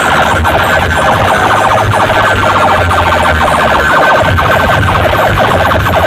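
Loud siren-like electronic tone blasted through a large DJ sound system, repeating in quick sweeps about twice a second over a pulsing bass.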